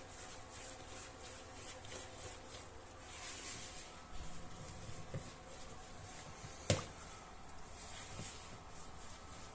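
Spoon stirring thick cake batter in a mixing bowl: a soft scraping repeated about twice a second, with one sharp click about seven seconds in.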